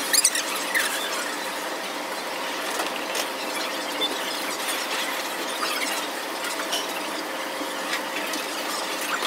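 Steady room noise of a fast-food restaurant with a faint hum, scattered small clicks, and a few short high squeaks in the first second.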